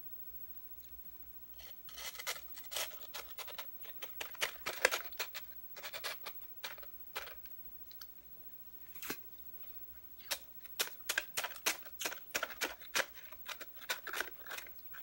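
Eating and drinking close to the microphone: crisp clicks and crackles as a plastic straw works through an icy slushy, coming in quick clusters after about two seconds, pausing briefly past the middle, then a dense run of clicks to the end.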